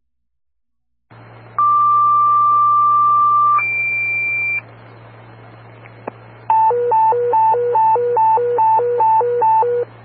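Dispatch radio paging tones heard through a scanner: the channel opens with hiss, then a long steady tone of about two seconds is followed by a shorter, higher one, as in two-tone sequential pager alerting. A few seconds later a high-low alternating alert tone warbles between two pitches, about eight cycles, and stops near the end.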